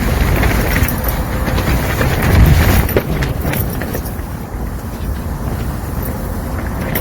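Strong, gusty wind buffeting the microphone: a heavy low rumble that swells about two and a half seconds in, then eases.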